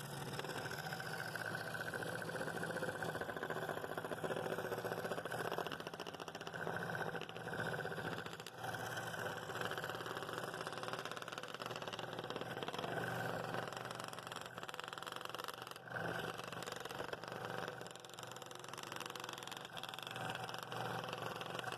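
Scroll saw running and cutting a poplar bowl blank with a walnut strip glued in: a steady motor hum with the sound of the blade in the wood, its level rising and falling a little as the blank is fed.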